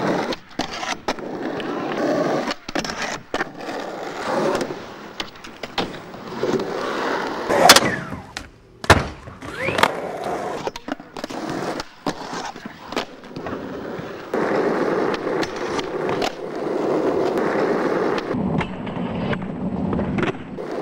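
Skateboard wheels rolling on asphalt and a ramp, broken by the sharp clacks of tail pops and board landings. The loudest smack comes a little under eight seconds in.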